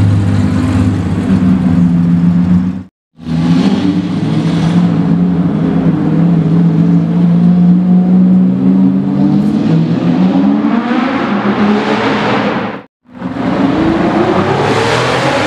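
Straight-piped Lamborghini Murcielago LP640's V12 running loud and revving up in rising pulls. The sound drops out completely for a moment twice, about three seconds in and again near thirteen seconds.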